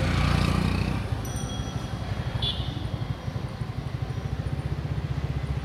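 Road traffic: a low engine rumble with a fast, even pulsing, with a brief faint high tone about two and a half seconds in.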